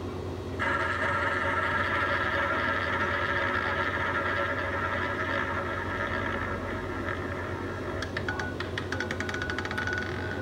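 Fixed-odds betting terminal playing its roulette spin sound through the machine's speaker: a steady whirr of the ball circling the wheel starts about half a second in, and from about eight seconds it turns to a fast run of clicks as the ball clatters over the pockets and settles.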